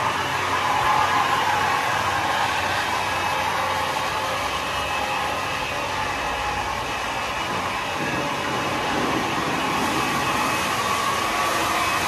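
WashBot Transformer 3XM in-bay automatic car wash running its soft-touch cycle: spinning foam brushes and cloth curtain strips scrubbing over a car, a steady mechanical wash noise.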